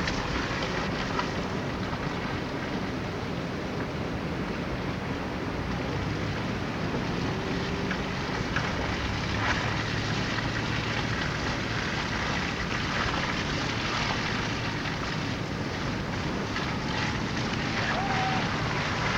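Steady rushing noise with no clear pattern, with a few faint, brief higher tones here and there.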